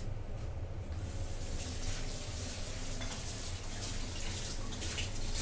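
Steam hissing from an aluminium pressure cooker on a lit gas burner as it comes up to pressure, a steady rushing that grows brighter toward the end, over a low steady rumble.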